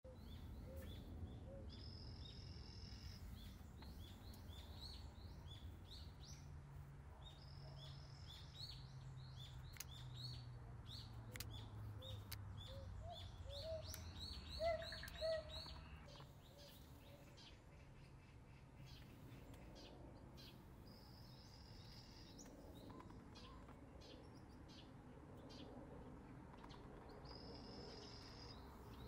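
Small forest birds chirping and singing, with rapid trills of high notes. About halfway a lower series of rising calls ends in two louder calls, after which the birdsong thins to a few distant notes over a faint insect-like buzz.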